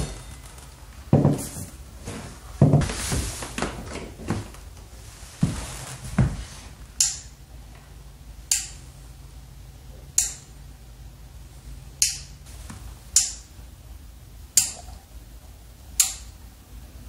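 Handling noises for the first few seconds, then a floor lamp's four-position switch clicking sharply, seven times about every one and a half seconds, as it is stepped through its settings for one, two and three lights.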